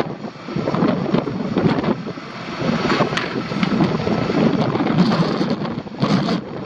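Wind buffeting the microphone in uneven gusts.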